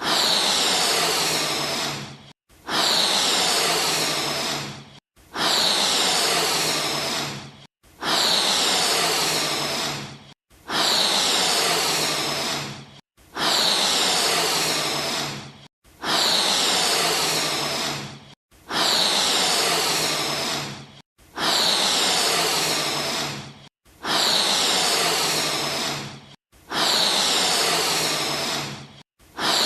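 Balloon-inflating sound effect: a hissing rush of air, about two and a half seconds long, repeated the same way roughly every 2.7 seconds, each rush trailing off before a brief gap.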